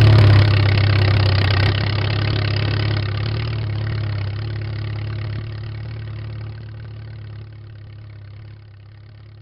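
Tractor engine running steadily at a low idle, fading gradually away.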